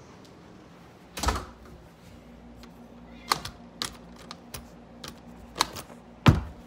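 Hand working a metal door knob and door: a string of sharp clicks and knocks, with a heavier thump near the end.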